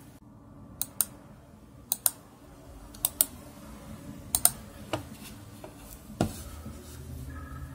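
Computer mouse buttons clicking: four sharp paired clicks about a second apart, then three single clicks.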